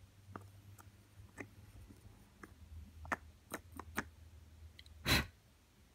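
Faint scattered clicks and light taps as a thumb wearing a false nail tip is dipped into a glass jar of dip powder, with one louder short noisy burst about five seconds in.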